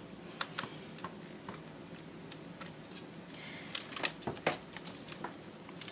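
Light clicks and taps of a hard plastic toy pony being handled, as its mode switch is slid from demo to play mode; the sharpest clicks come in a cluster about four seconds in.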